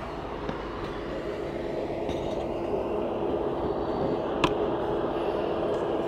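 MIG welding machine switched on and idling before an arc is struck: a steady fan and transformer hum with a constant tone, slowly getting louder, and one sharp click about four and a half seconds in.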